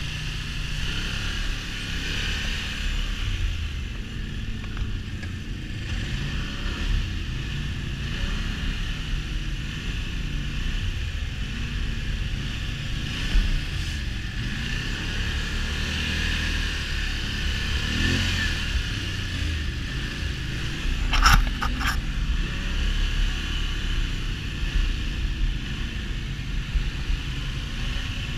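Off-road quad or side-by-side engine running, its revs rising and falling. A few short, sharp knocks come about three quarters of the way through.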